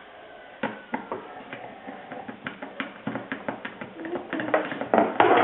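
Small sharp clicks and taps of an Allen key working the little screws under a Mini Micro scooter's plastic deck, with a denser, louder clatter of handling near the end.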